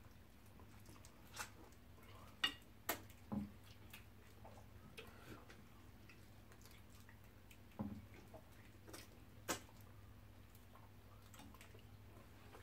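Quiet mukbang eating sounds: a few scattered wet mouth clicks and smacks and light taps as two people eat fufu and pepper soup with gloved hands, over a faint steady low hum.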